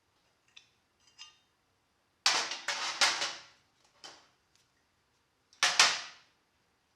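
Hammer blows knocking the old steel pin out of a 1971 Camaro door hinge, each with a sharp metallic ring: a few light taps at first, a quick run of hard blows a little over two seconds in, one more about four seconds in, and a pair near six seconds.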